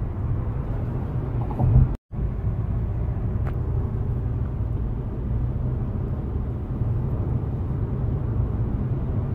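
Steady low road and engine rumble inside the cabin of a Renault Samsung SM7 cruising at highway speed. There is a brief drop to silence about two seconds in.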